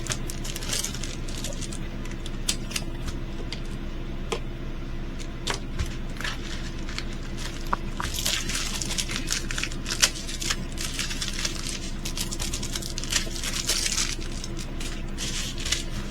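Hands handling a diamond painting kit's plastic packaging: crinkling and rustling with many scattered small clicks and taps, over a steady low hum.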